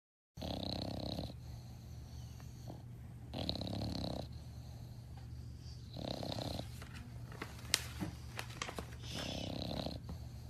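English bulldog snoring: four long snores about three seconds apart, over a steady low hum, with a few short clicks between the third and fourth snore.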